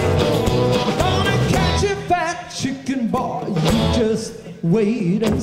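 A live blues-rock band with electric guitars, bass, drums and singing. About two seconds in, the band drops out, leaving a quieter wavering melodic line. The full band comes back in near the end.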